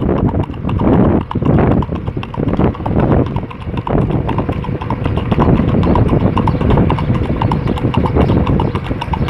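Shod hooves of a Mangalarga Marchador colt clip-clopping on asphalt in the marcha picada, a quick, even four-beat gait. The hoofbeats come at about four to five a second and are clearest in the second half.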